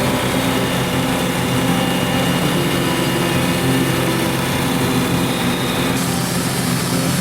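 Engine of a Wood-Mizer LT35HD portable sawmill running steadily.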